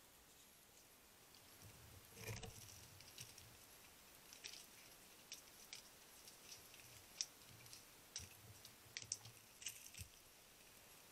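Faint, irregular crackling and ticking of dry leaf litter as a wood mouse moves and forages, with one louder brief rustle about two seconds in.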